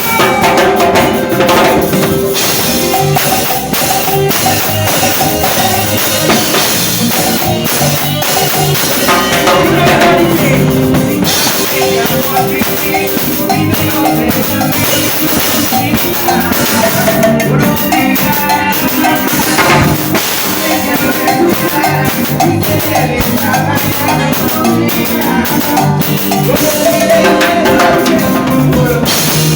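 A live cumbia band playing, with the drum kit prominent, its drums marking the beat and breaks.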